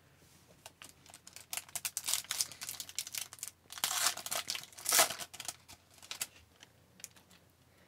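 Foil trading-card pack wrapper crinkling and being torn open by hand, the loudest rips about four and five seconds in. This is followed by a few light rustles as the cards are slid out of the wrapper.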